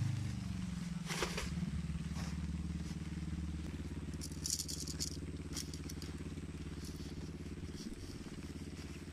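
Motorcycle engine idling steadily just after starting, its pitch settling in the first second, with a few light clicks and rattles over it.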